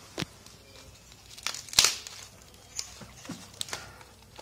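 Hands handling wiring and plastic-film-wrapped circuit boards: scattered crinkles, rustles and small clicks, the loudest one about two seconds in.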